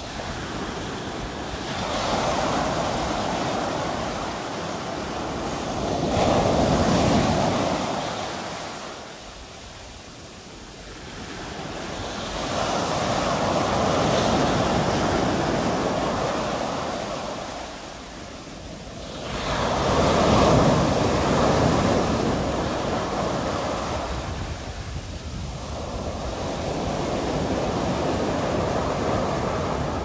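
Sea waves breaking and washing up a sandy beach. The surf rises and falls in about five surges, one every six to seven seconds.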